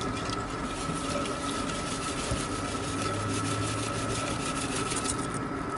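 Sodium hydroxide (lye) granules poured into water in a stainless steel pot and stirred with a wooden spoon: faint fine ticking and rubbing over a steady outdoor rushing noise.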